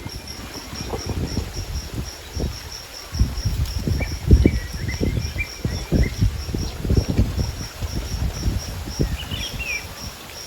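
An insect chirps steadily at about four high pulses a second, over irregular low thuds and scuffs. Faint bird calls come twice, around the middle and near the end.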